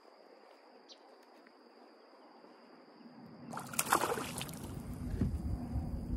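A hooked fish breaks the surface and thrashes about three and a half seconds in, a sudden loud splash, followed by continued sloshing of the water.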